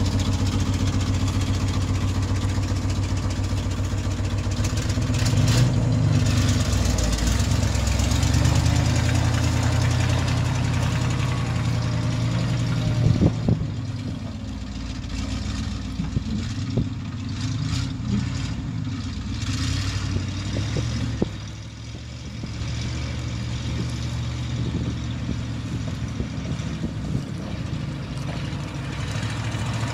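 1970 GMC 5000 straight truck's engine running as the truck pulls away and drives across a field. The engine pitch rises and falls twice in the first ten seconds, then the sound is fainter as the truck moves off.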